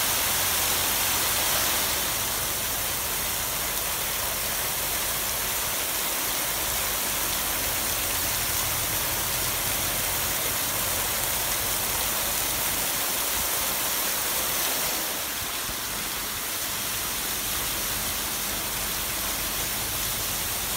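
Ground-level plaza fountain: a ring of vertical water jets splashing steadily onto wet paving. The rushing eases slightly about two seconds in and again about three-quarters of the way through.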